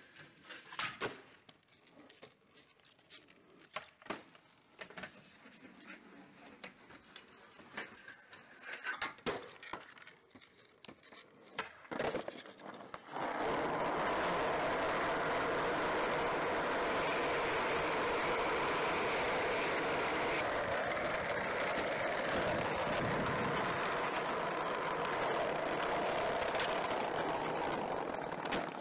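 Skateboard tricks: scattered sharp clacks and knocks of the board popping, hitting the rail and landing. About 13 seconds in, the steady loud rolling noise of skateboard wheels on asphalt takes over, close up as the board rides down the street.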